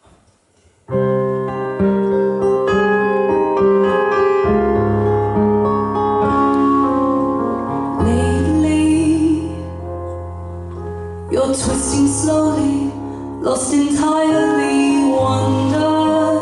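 Live band music: the instrumental opening of a song, sustained chords over a steady bass line starting about a second in, with sharp strummed chords coming in around eleven seconds.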